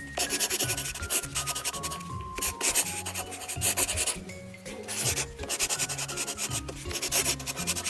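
Hand writing a word on a writing surface: several bursts of quick scraping strokes, with short pauses between them. Soft background music plays under it, a slow line of notes stepping down.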